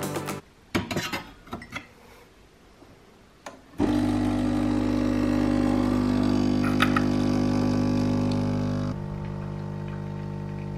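A few clicks and knocks, then about four seconds in an espresso machine's pump starts with a sudden steady buzzing hum as it brews coffee into a mug. It drops to a quieter hum near the end.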